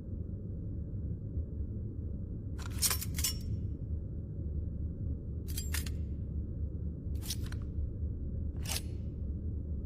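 Throwing stars (shuriken) sound effect: four short, sharp metallic swishes about a second and a half apart, over a steady low hum.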